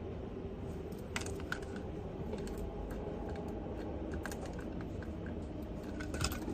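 Computer keyboard typing in short, scattered bursts of clicks over a steady low background hum.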